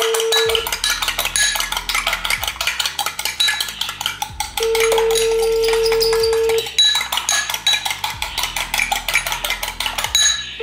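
A metal spoon whisking egg in a ceramic bowl, clinking rapidly against the sides. A phone's ringback tone on speaker sounds over it: a steady beep about two seconds long that ends just under a second in and comes again about four and a half seconds in. The call is ringing out unanswered.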